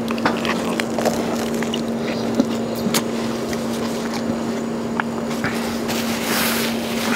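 A steady machine hum with one constant low tone, under soft clicks of eating close to a clip-on microphone and a brief paper-napkin rustle about six seconds in.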